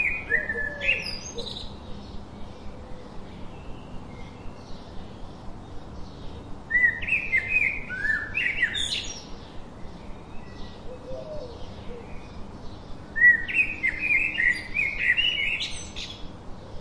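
A songbird singing three quick phrases of short chirped notes that bend up and down in pitch, with a faint high chirp repeating about twice a second between them.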